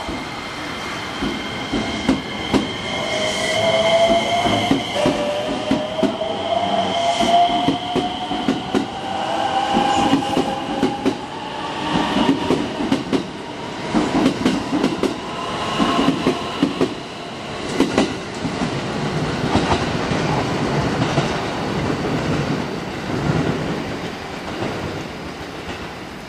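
Electric train running through the station, its wheels clicking steadily over the rail joints, with a whine that rises slowly in pitch over the first ten seconds or so.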